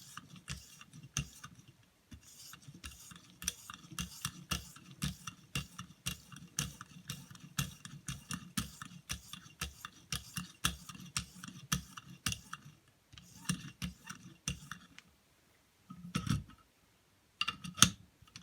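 Pocket-knife blade being stropped on an oiled strop in a guided sharpening system: quick, repeated scraping strokes, two or three a second, pulled away from the edge to finish the blade. The strokes stop for a moment near the end, followed by a few louder knocks.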